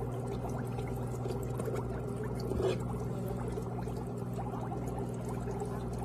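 Electric foot spa bath running: a steady motor hum with water bubbling and gurgling over it, briefly louder about two and a half seconds in.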